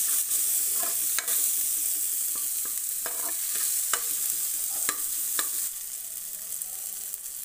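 Chopped onion, garlic and ginger sizzling in hot ghee in a kadhai while a steel ladle stirs them, with scattered clicks and scrapes of the ladle against the pan. The sizzle quietens a little near the end.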